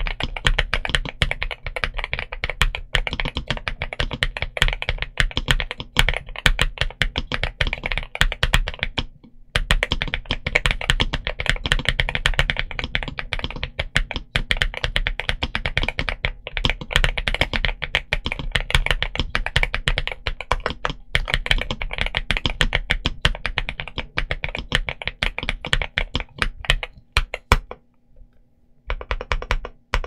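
Continuous typing on a Halo75 v2 mechanical keyboard with NuPhy Lemon tactile switches and mSA-profile PBT keycaps: a fast, steady run of key clacks, with short pauses about nine seconds in and again near the end.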